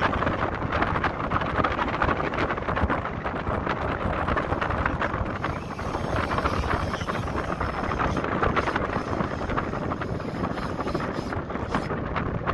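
Wind buffeting the microphone, a loud, steady rush with constant crackle.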